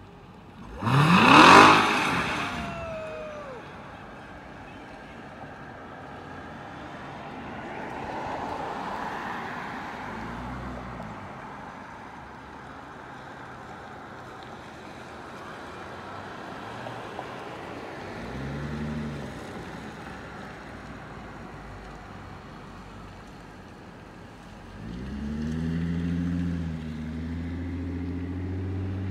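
A car engine revving hard about a second in, the loudest moment, with its pitch sweeping up and falling away. Shorter revs follow twice later, and near the end the engine runs steadily louder.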